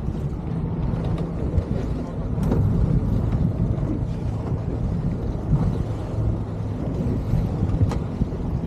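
Wind rumbling on the microphone over the steady low hum of a boat's motor.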